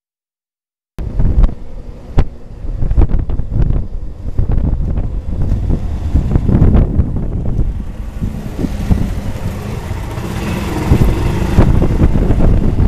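Wind buffeting a small handheld camcorder's microphone, starting about a second in: a loud low rumble, with scattered clicks and knocks from handling the camera.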